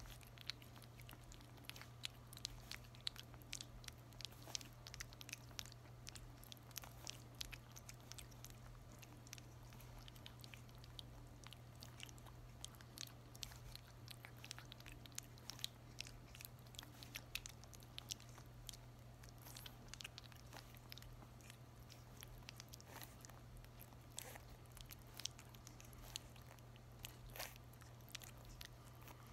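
A merle puppy about a month old licking and mouthing wet weaning mush from a hand. The sound is faint, irregular wet smacking clicks, several a second.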